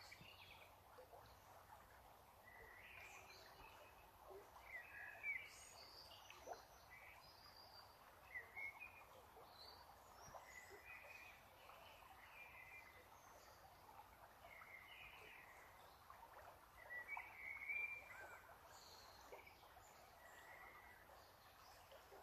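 Faint, short bird chirps scattered every second or two over a low steady hiss, with slightly louder bursts of calls about five seconds in and again around seventeen seconds in.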